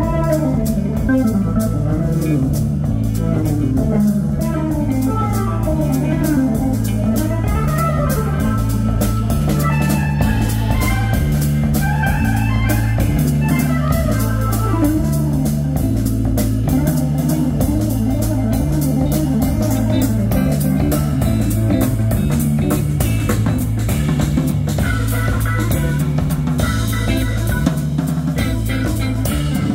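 Live rock trio playing an instrumental passage: electric guitar and organ lines over a repeating pulsing bass figure, with a drum kit keeping a steady beat.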